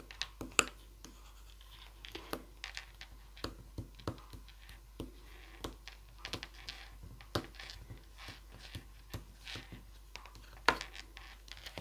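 Bone folder rubbing and scraping over paper butterflies glued to a card, pressing them flat: a string of small irregular scratches with a few sharper taps.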